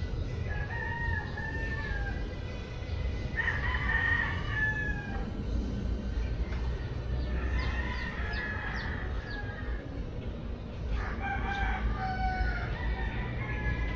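Roosters crowing, about four long calls in turn, over a steady low rumble.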